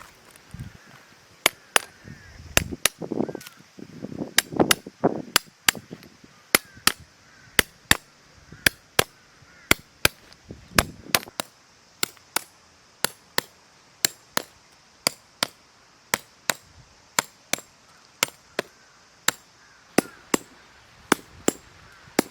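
Steady hammering: sharp, even strikes, about three every two seconds, starting a second or so in. A few duller knocks come in the first few seconds.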